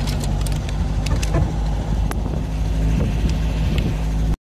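A motor vehicle engine running steadily while driving, with scattered rattling clicks. The sound cuts out completely for a moment near the end.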